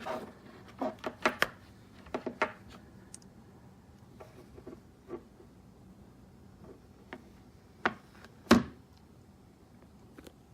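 Handling a smartphone: scattered taps, clicks and light knocks, a cluster of them in the first two and a half seconds, a few single ones after, and the loudest knock about eight and a half seconds in.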